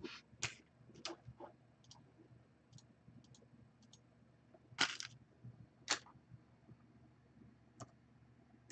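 Trading cards handled in the hands: faint scattered clicks and rustles of card edges and surfaces, with two sharper snaps about five and six seconds in.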